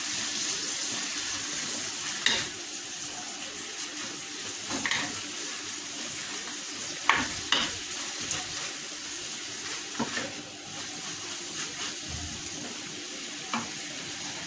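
Shredded chicken sizzling in a hot frying pan as a wooden spatula stirs and tosses it, with a sharp scrape or knock of the spatula against the pan every couple of seconds over the steady frying hiss.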